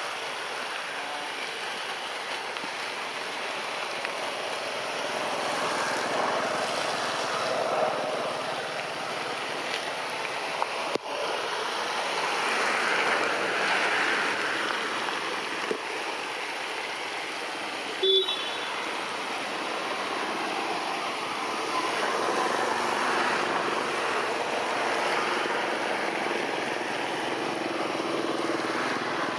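Steady rain falling, its hiss swelling and easing in waves. A single sharp click comes near the middle, and a short, louder sound with a brief high tone about two-thirds of the way through.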